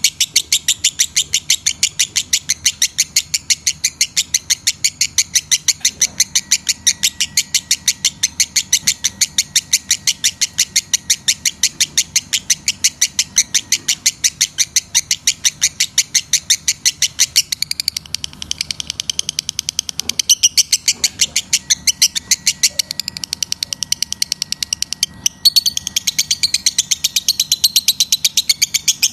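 Lovebird calling in a fast, unbroken run of short, high chirps, several a second. These are the calls of a lovebird in breeding condition. Past the middle the chirps turn more varied and chattering, with a short break near the end.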